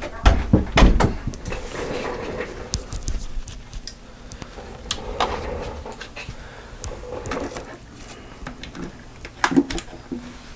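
Knocks and clicks of hand tools and parts being handled on a work surface, with a loud cluster just after the start and another near the end.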